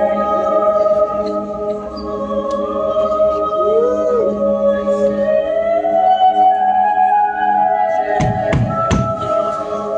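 Live band music: an instrumental passage of long sustained notes that slide slowly in pitch, with a wavering note about four seconds in. A few sharp hits with low thuds come between about eight and nine seconds.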